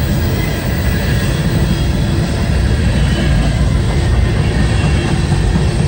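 Freight train's covered hopper cars rolling past, a steady rumble of steel wheels on the rails.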